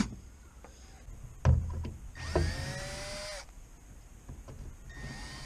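Cordless drill-driver with a T25 Torx bit spinning out the cowl panel screws. A knock comes about a second and a half in, then the motor runs for just over a second, its pitch rising and then holding, and runs again briefly near the end.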